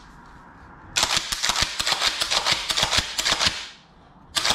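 Kel-Tec KS7 pump-action shotgun being cycled by hand: the slide and action clack in a quick, dense run of metallic clicks starting about a second in and lasting about three seconds, with another burst of clacks near the end.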